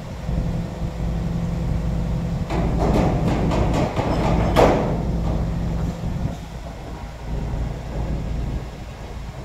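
A heavy diesel engine idling steadily, with a spell of metallic clattering and rattling from about two and a half to five seconds in, peaking in one loud clank.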